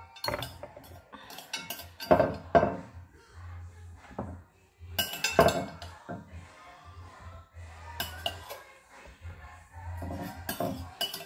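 A spoon scraping and clinking against a ceramic bowl and dish as sauce is scooped up and spooned over a cauliflower, in scattered clinks a second or more apart, the loudest about five seconds in.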